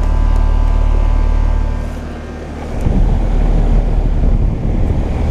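Carrier Comfort heat pump outdoor unit starting up in cooling mode: its Copeland scroll compressor hums steadily with a steady tone over it. About three seconds in the sound changes suddenly to a rough rushing rumble, with the air buffeting the microphone.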